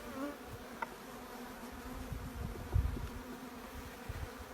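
Honeybees from an opened nuc hive buzzing, a steady hum. There are a few low bumps, the loudest just under three seconds in.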